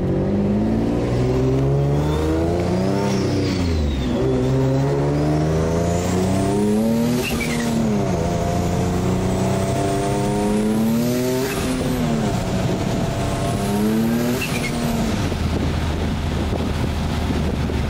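Single-turbo Nissan G37's V6 under hard acceleration through several gear changes. Each pull rises in pitch with a climbing turbo whistle, then drops at the shift, about every four seconds. Near the end it settles to a steady cruise.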